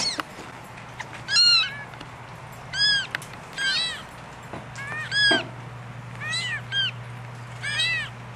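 Newborn kittens, four or five days old, mewing in short high-pitched cries, about one a second, each rising then falling in pitch. A faint steady hum lies underneath.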